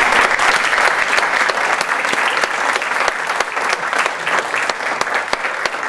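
Audience applauding, many hands clapping at once, easing slightly toward the end.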